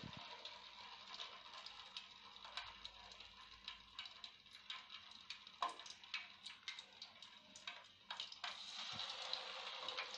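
Battered banana fritters frying in hot oil in a wok: faint, irregular crackling and sizzling over a soft hiss.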